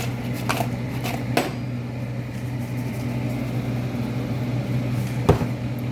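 A steady mechanical hum of kitchen equipment, with a few short clicks and knocks as the seasoned fries are tossed and mixed; the sharpest knock comes about five seconds in.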